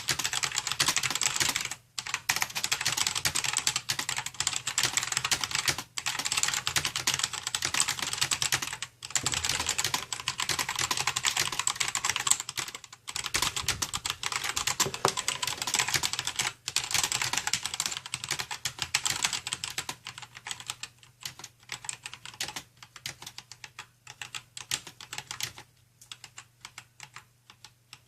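Fast typing on an Aula Wings of Liberty mechanical keyboard with Gateron Black linear switches: a dense, rapid run of key strokes broken by brief pauses every few seconds. From about two-thirds of the way through, the strokes thin out and grow quieter.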